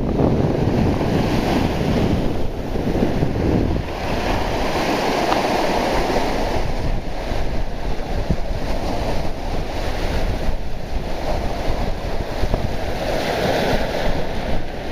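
Sea surf breaking and washing up the beach, with wind buffeting the microphone.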